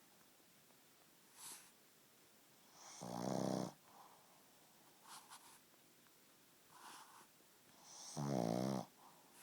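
Pug snoring: two loud, rasping snores about five seconds apart, each lasting under a second, with softer short breath sounds between them.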